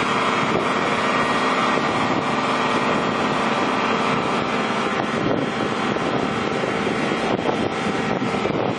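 Engine-driven water pumps running steadily, a constant droning hum as they pump water into an Aqua Dam water-filled cofferdam.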